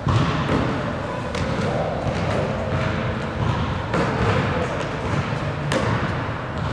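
Basketball thuds during a shooting drill: a few sharp knocks, a second or more apart, as the ball strikes the rim, bounces on the hardwood floor and is caught.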